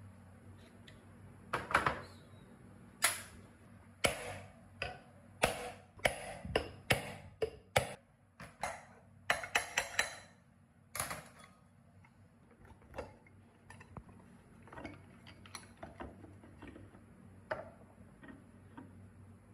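Sharp metal clicks and knocks as the end cover of a rusty electric motor is unbolted and worked loose from the housing, coming thick and fast in the first half and fewer later.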